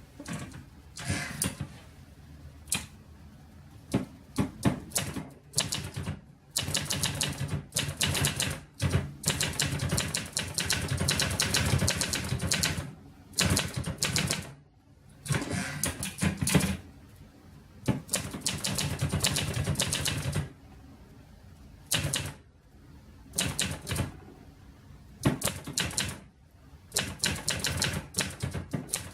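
1974 Montgomery Ward Escort 66, an Olivetti-built portable manual typewriter, being typed on: runs of rapid key clacks in bursts of a few seconds, broken by short pauses.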